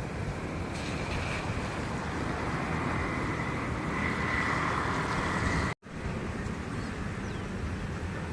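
Steady outdoor background noise: a low rumble with hiss that swells for a few seconds, cuts off abruptly about six seconds in, and resumes.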